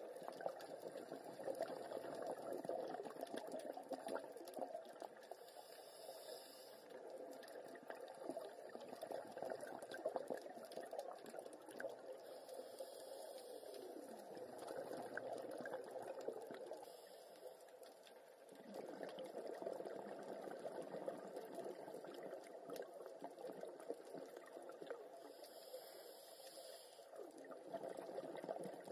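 Underwater bubbling and water noise, muffled through a compact camera's underwater housing, typical of scuba divers' exhaled regulator bubbles. It fluctuates throughout and eases off briefly a little past halfway.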